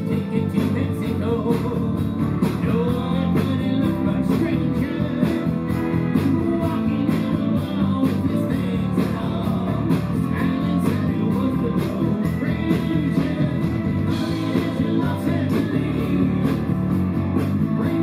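Live band playing a guitar-led rock song with a steady beat.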